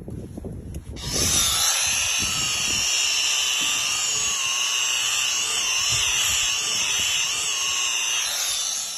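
Handheld electric polisher with an abrasive pad running on car glass to grind out scratches: a steady high whine and hiss. It starts about a second in and winds down near the end.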